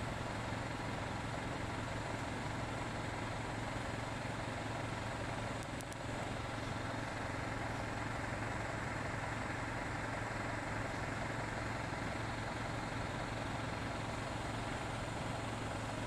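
Steady low mechanical hum of an engine running at idle, over a constant haze of background noise.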